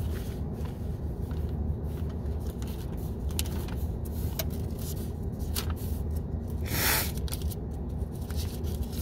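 Steady low rumble inside a car, with scattered small clicks and one short rustling swish about seven seconds in, as of something being handled.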